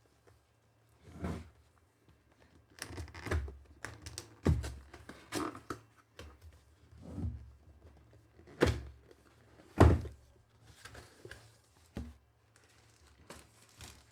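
Cardboard product box being handled and opened by hand: a string of irregular knocks and thumps, the two loudest a second apart near the middle.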